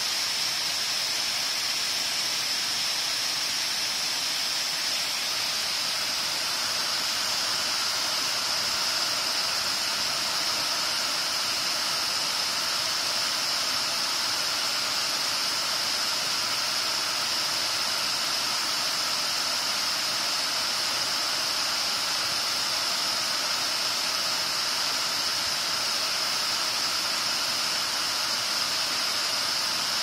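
Steady rush of a tiered cascade waterfall spilling over rock ledges, with a steady high hiss.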